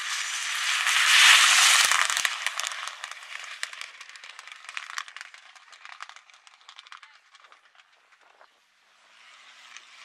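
A rally car passing fast on a gravel stage: a loud rush of tyres and thrown gravel about a second in, then a scatter of stones clicking and rattling that fades away.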